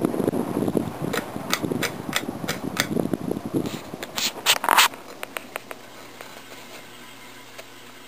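Ceiling fan running, the air off its blades buffeting the microphone, with a regular ticking about three times a second. About five seconds in the buffeting cuts off suddenly, leaving a low steady hum with faint ticks.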